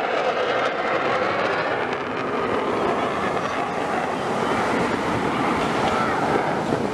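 Steady jet aircraft engine noise.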